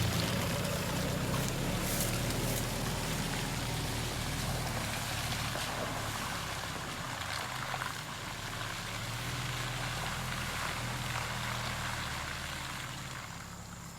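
Truck's diesel engine running steadily, its sound slowly fading away toward the end.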